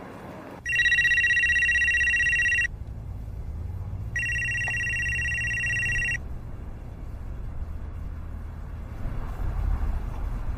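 Telephone ringing twice with an electronic trilling ring, each ring about two seconds long; the second ring is softer.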